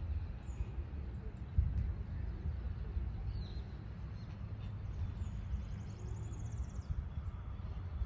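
Wind buffeting the microphone in an uneven low rumble, with a few faint high bird chirps and a short high trill about five seconds in.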